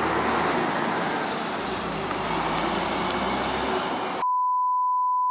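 Isuzu Erga non-step city bus pulling away from the kerb and driving off, its diesel engine and road noise running steadily. About four seconds in this cuts off abruptly and is replaced by a steady pure beep tone.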